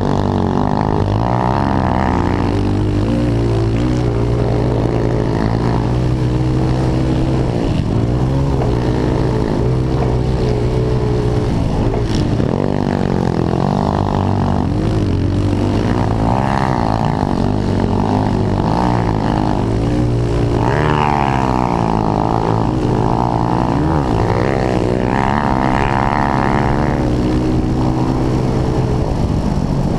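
Pit bike's single-cylinder engine heard up close from the bike, revving hard, its pitch rising and falling repeatedly with throttle and gear changes while racing.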